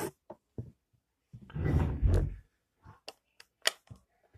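Plastic Lego bricks being handled: a brief rustling clatter as loose pieces are picked through, then about four sharp clicks in quick succession near the end as bricks are pressed onto the model.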